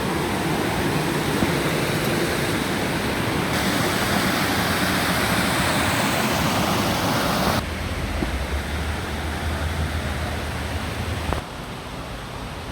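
Steady rush of falling and running water in a rainforest creek. The sound drops abruptly in level twice, about seven and a half and eleven seconds in.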